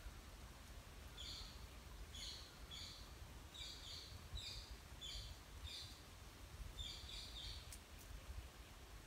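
A bird calling faintly in short high chirps, some in quick pairs, about a dozen over several seconds, over a low steady rumble of outdoor background noise. Two faint clicks come near the end.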